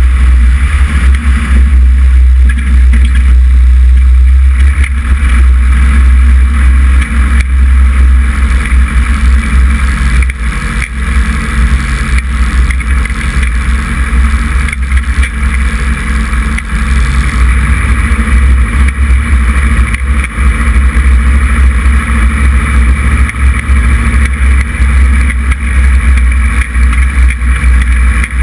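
Cessna 140 on skis taxiing over a snow-covered frozen lake: its propeller and four-cylinder air-cooled engine run steadily at low power. A loud, flickering low rumble of airflow on the microphone runs beneath.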